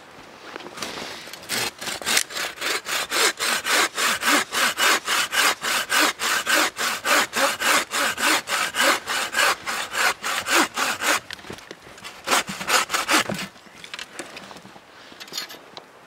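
Hand saw cutting through a wet, mossy deadfall branch: a fast, even run of push-pull strokes, about four a second, then a short pause and a few more strokes near the end.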